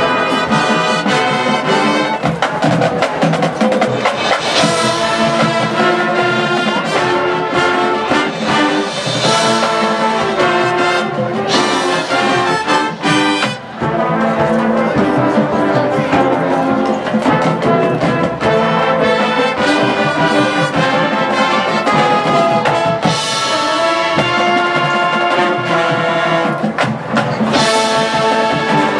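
High school marching band playing its field show: brass-led sustained chords with percussion underneath. The sound drops out briefly about halfway through, then the band comes back in.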